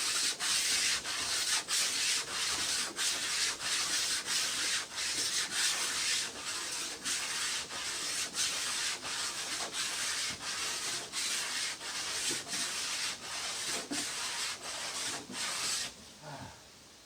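Hand sanding of the cedar canoe while fairing it: a steady rasping hiss of abrasive on wood in regular back-and-forth strokes, about three every two seconds. The sanding stops about sixteen seconds in.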